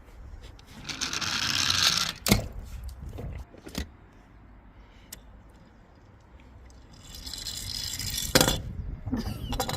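Plastic toy cars rattling as they roll down a ramp, twice building up and ending in a sharp clack, with another clack in between.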